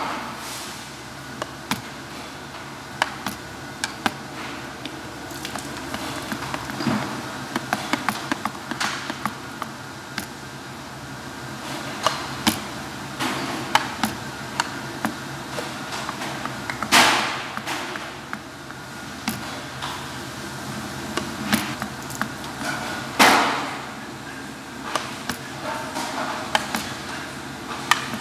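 Wooden spatula tapping and scraping against a small metal bowl while fish paste is scooped and shaped into Ise hanpei. There are many light taps throughout and two louder, longer scrapes in the later part, over a faint steady machinery hum.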